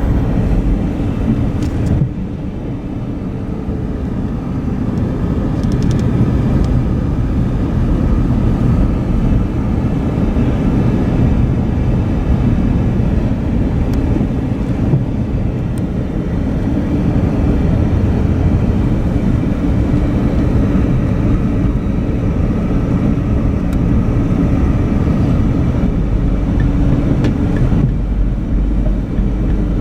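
Car driving: a steady low rumble of engine and road noise, dropping a little about two seconds in.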